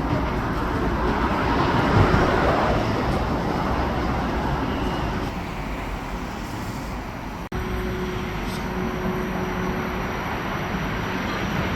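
Modern tram running: a steady rumble and rolling noise of the car under way. About seven and a half seconds in, the sound cuts out for an instant, and a steady low hum continues after it.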